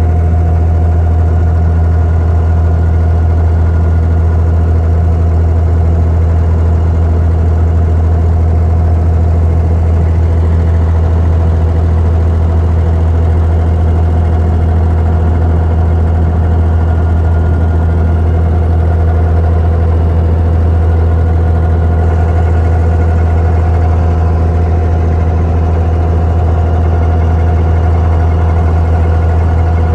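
Inboard diesel engine of an abra water taxi running steadily under way, a loud, even low drone heard from on board.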